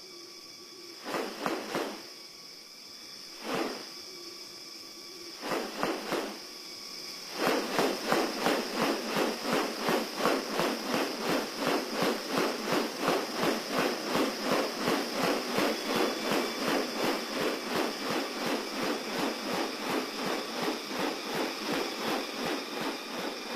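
Rainforest ambience: a steady high insect drone, with short clusters of sharp pulsed sounds early on. From about seven seconds in, a long run of rapid pulses follows, about three a second.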